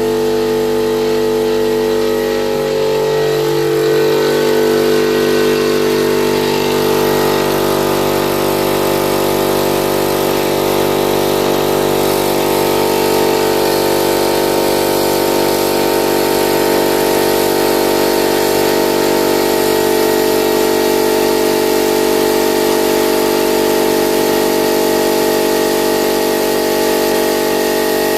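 ALDI piston air compressor, its head gasket freshly replaced, running steadily and pumping up its tank toward a cut-out set at about 120 psi.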